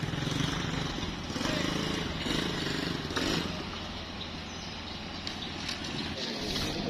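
An engine running with a steady low drone, under a general outdoor bustle.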